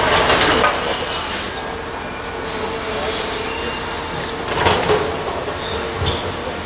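Heavy machinery running steadily, with a constant whine under a noisy bed. A brief louder metallic scrape or squeal comes right at the start and again a little before five seconds in.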